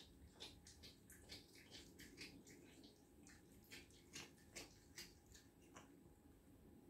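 A cat chewing raw fish giblets: a fast, irregular run of faint wet smacks and clicks from its mouth, which stop near the end as it lifts its head.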